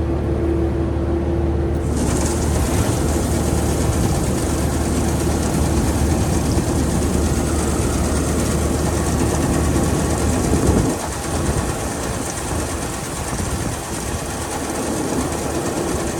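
Engine-driven farm machine running with a dense clattering rattle that sets in about two seconds in. The steady low engine hum drops away about eleven seconds in, while the rattle continues.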